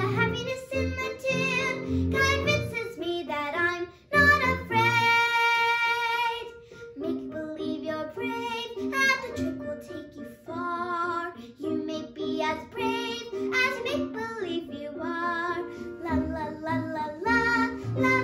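A young girl singing a show tune over instrumental accompaniment, holding one long note with vibrato about four seconds in.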